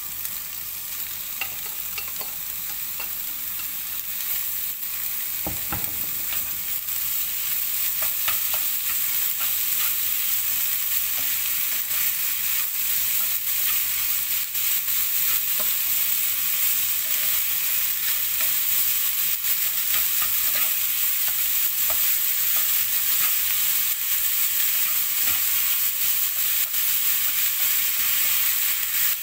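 Minced beef frying with softened diced onion in olive oil, sizzling and growing louder over the first several seconds before settling to a steady sizzle. A utensil clicks and scrapes against the pan as the mixture is stirred.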